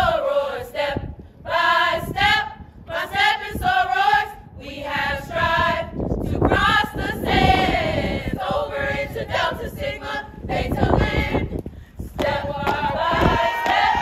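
A group of women's voices chanting in unison in short rhythmic phrases. From about halfway the voices grow louder and rougher, closer to shouting.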